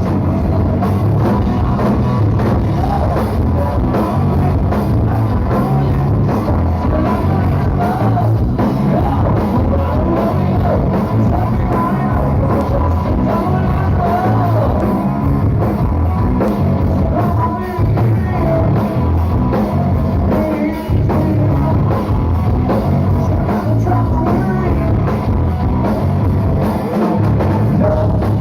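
Rock band playing with drums and a lead singer: a steady, loud full-band sound with the vocal melody carried over it.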